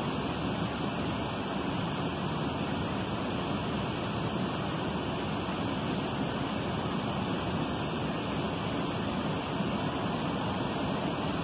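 Steady rush of running river water, an even hiss that holds without breaks.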